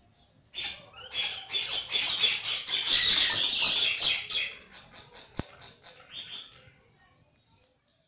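Flock of crows and smaller birds calling in a loud, dense run of rapid high-pitched chattering for about four seconds, then thinning to scattered calls. A single sharp click is heard a little past halfway.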